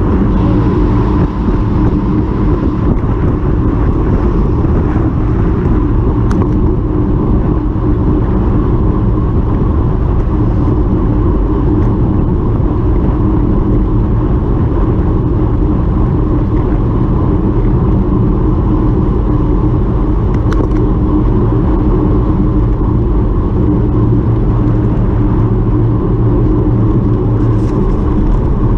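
Steady rumble and hum of a moving vehicle, running evenly throughout.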